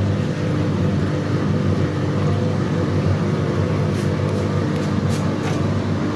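Washing machine running with a steady motor hum, a few light clicks or rattles about four and five seconds in.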